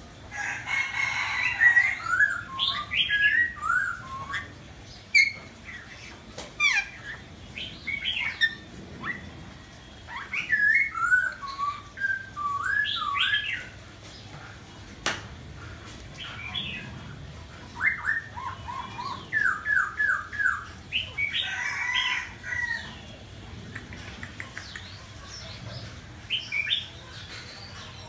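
Cuban amazon parrot calling in bursts of short whistled notes that slide up and down, broken by harsh squawks near the start and again about three-quarters of the way through. A quick run of five or six rising notes comes about two-thirds of the way in.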